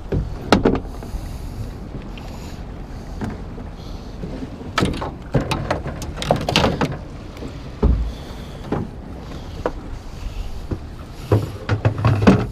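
Scattered knocks and clunks of people and gear moving about a small fishing boat's deck, with a heavier thump about eight seconds in, over a steady low wind rush.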